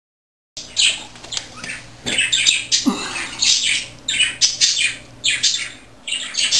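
Series of short, scratchy rustles, a few per second, as a cat paws at and plays with a crinkly scrap of paper or plastic on a tile floor, starting about half a second in. One short falling cry comes about three seconds in.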